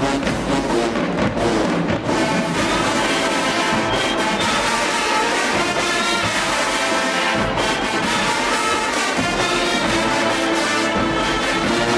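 HBCU marching band playing a loud brass-heavy tune, with trombones and trumpets carrying held chords.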